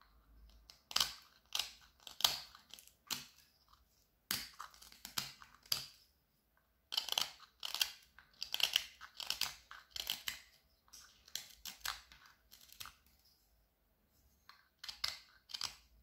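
Carving knife slicing shavings off the end of a bark-covered wood branch: short, crisp cuts about two a second, in runs broken by brief pauses.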